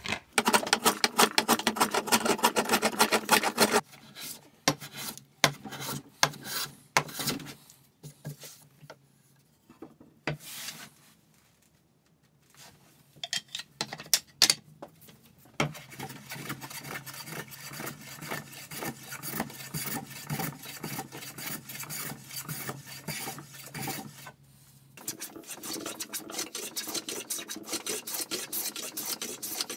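Metal bench planes shaving rough reclaimed oak: runs of rasping strokes, broken by a short quiet pause partway through, as the boards are planed to dimension. A steady low hum sits under the strokes for several seconds in the second half.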